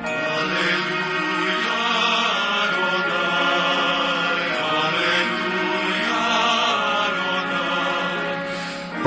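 Choral music: a choir singing held chords in a slow, steady passage, a new phrase every second or so.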